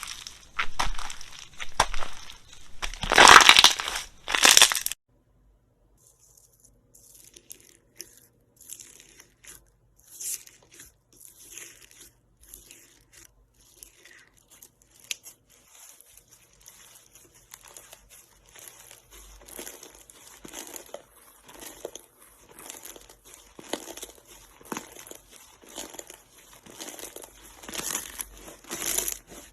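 Slime being squished and pressed, with a loud crinkling, crackling crunch for about the first five seconds. It cuts off suddenly, then comes back as quieter scattered crackles and pops that grow busier and louder toward the end.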